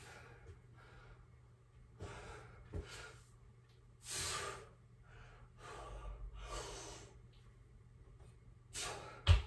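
A man breathing hard, with a forceful exhale on each pull-up, about four in all. A sharp thump near the end, the loudest sound, as he drops from the bar to the floor.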